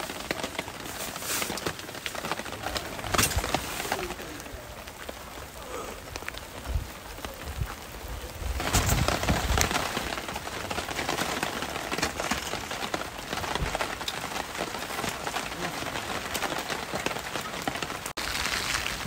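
Steady rain falling, with a few scattered knocks; the rain grows louder about eight and a half seconds in.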